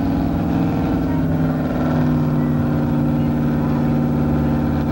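Gas-engined pickup truck, a Dodge Ram, running hard at high revs under load as it drags a weight-transfer pulling sled. Its engine drone holds steady and loud.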